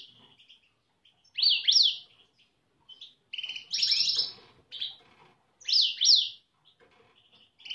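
European goldfinches twittering: short, high phrases of quick rising and falling chirps, repeated four times with brief pauses between.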